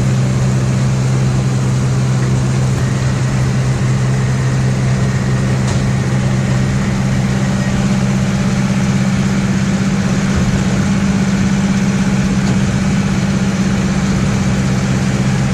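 Tractor engine running steadily at working speed, pulling a round baler through barley straw, with the baler's pickup and chamber running.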